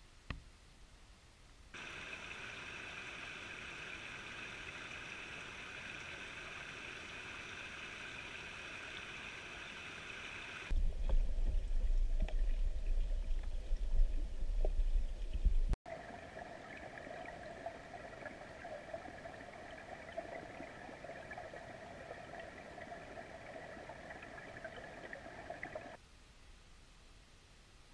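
Shallow creek water running over stones, a steady rushing that starts about two seconds in. From about 11 to 16 seconds it becomes a loud, muffled low rumble of water heard from under the surface, then switches back to the open-air rushing until it drops away a couple of seconds before the end.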